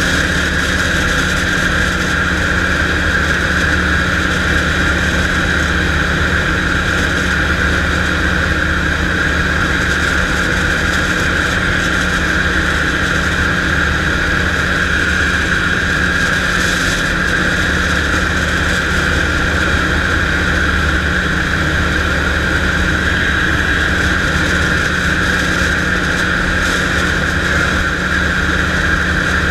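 Storch light aircraft's engine and propeller running steadily at full power as it climbs out after takeoff, heard from inside the cockpit: an even low drone with a steady high whine over it.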